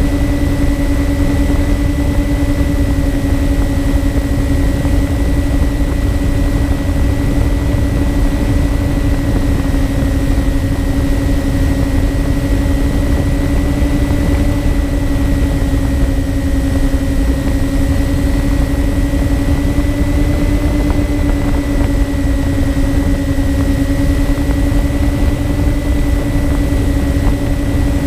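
Twin electric motors and propellers of a MyTwinDream FPV model plane running at a steady cruise, a constant droning hum heard from the onboard camera with wind rushing over the microphone.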